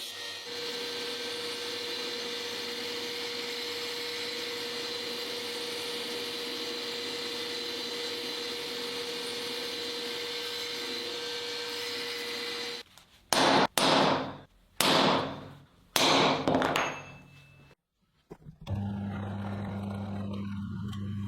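Power tools working steel: a steady machine whine for most of the time, then three loud bursts about a second each, dropping in pitch, then a steady lower motor hum near the end.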